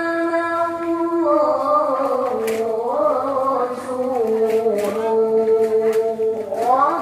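A voice singing long held notes. About a second in it drops into an ornamented, wavering phrase that falls in pitch, holds lower notes, and glides back up near the end.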